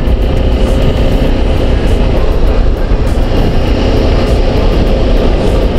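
Yamaha XTZ 250 Lander's single-cylinder engine running steadily while the motorcycle is ridden, nearly buried under heavy wind noise on the microphone.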